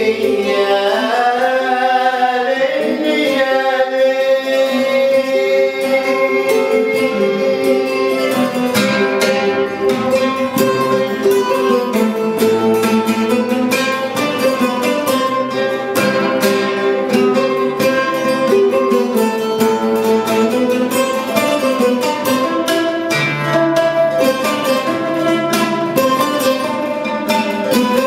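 Acoustic trio of oud, kora and long-necked lute playing together, with a man singing over the plucked strings in the first few seconds. From about eight seconds in the voice is gone and the instruments carry on alone in quick, densely picked notes.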